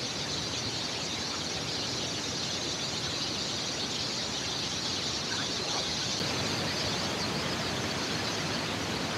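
Steady rush of a wide row of waterfall cascades, an even hiss that holds without a break.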